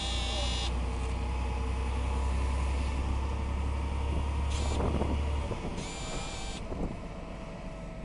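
Low engine and road rumble of a moving road vehicle, heard from on board, that drops away about five and a half seconds in. Short high-pitched squeals come at the start, briefly around four and a half seconds, and again about six seconds in.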